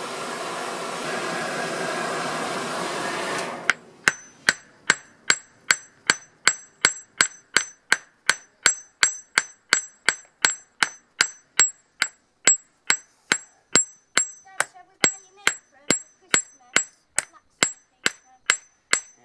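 A hair-dryer blower forcing air into a coal forge makes a steady rush for the first few seconds. Then a hand hammer strikes hot steel on a steel-block anvil about two and a half times a second, each blow ringing high, as the iron is flattened into a bodkin arrowhead.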